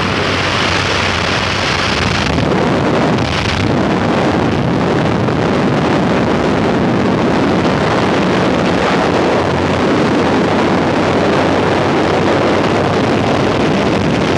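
Wind rushing through the open door of a skydiving jump plane over the steady drone of the aircraft's engine, loud and unbroken.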